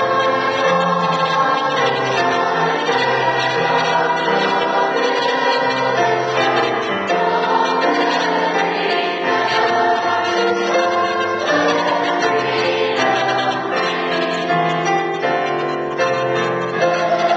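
A mixed-voice youth chorus singing in parts, slow held chords, with a keyboard accompanying.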